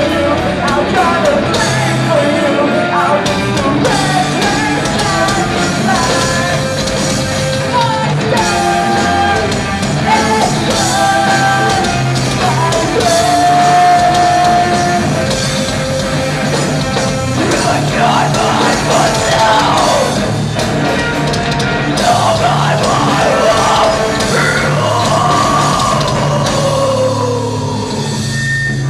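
A live rock band playing a song: a singer over guitars, bass and drum kit, with one long held vocal note midway.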